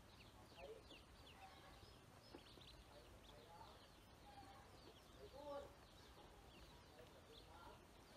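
Faint peeping of a group of ducklings: many short, high peeps falling in pitch, one after another. A few lower calls sound among them, the loudest about five and a half seconds in.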